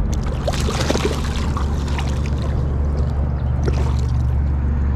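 Water splashing and trickling in short bursts as a hooked common carp is handled at the surface, over a steady low rumble. The splashes bunch up about half a second to two seconds in, with another near the four-second mark.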